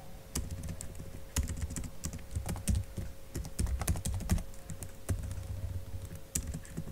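Typing on a computer keyboard: irregular key clicks, a few at a time with short pauses between them.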